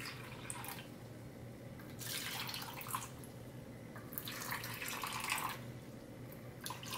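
Water poured from a pitcher into the cups of a silicone ice cube tray, in three short pours with brief pauses between as each cup is filled in turn.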